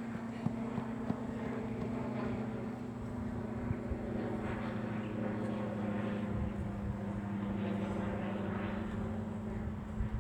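A steady engine drone holding one low pitch, with a few faint clicks over it.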